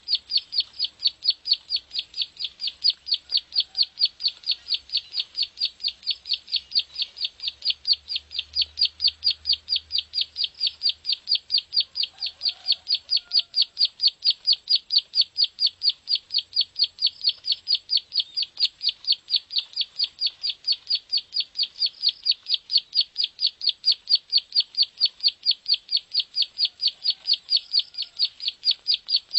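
Ciblek sawah (prenjak sawah, a prinia) calling in one long, unbroken run of sharp, high 'klik' notes at an even pace of about three or four a second.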